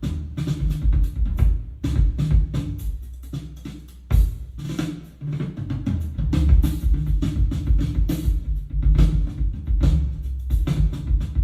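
Drum-led music: a drum kit with kick and snare over heavy bass. It eases off briefly and comes back in with a sharp hit about four seconds in.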